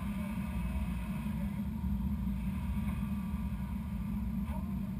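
Steady low engine rumble that holds the same pitch throughout.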